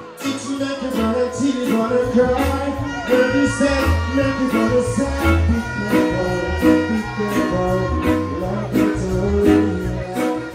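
Live reggae performance over a stage sound system: a male singer sings into a microphone over backing music with heavy bass and a steady drum beat.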